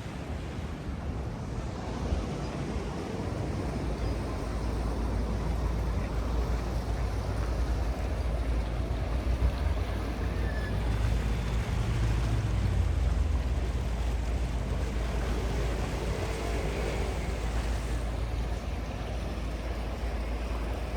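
Wind buffeting the microphone over a steady outdoor rumble, with a faint low motor hum that swells around the middle.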